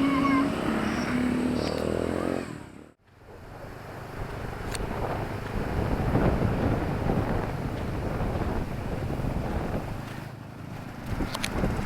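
Small-town street traffic. An engine hums steadily at first, the sound cuts out almost completely for a moment about three seconds in, then a rumble of passing vehicles rises and falls again.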